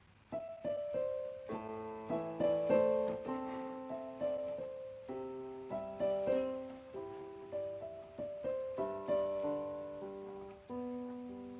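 Background music: a gentle piano melody with chords, notes struck and fading.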